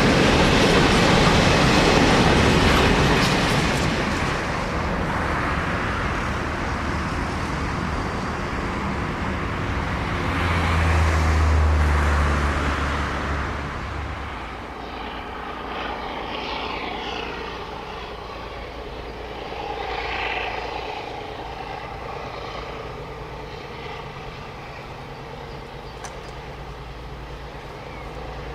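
A freight train passing, its wagons' wheels running on the rails, the noise easing off after a few seconds as it moves away. About halfway through a low engine hum swells and fades, then a quieter background.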